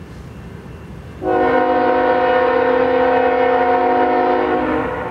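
Diesel locomotive air horn sounding one long, loud chord-like blast as the train approaches a grade crossing. It starts about a second in over a steady low rumble and stops near the end.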